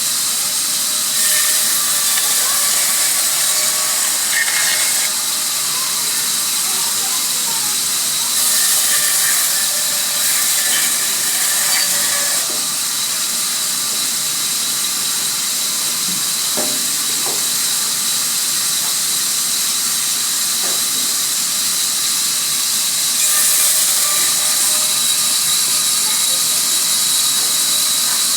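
Sawmill saw running through wood, a steady high hiss with a thin whine in it, growing louder in a few stretches, with a few faint knocks in the middle.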